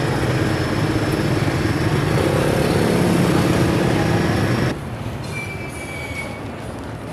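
Loud roadside traffic noise: a steady rumble of passing vehicles. It cuts off suddenly about two-thirds of the way through, leaving a quieter background.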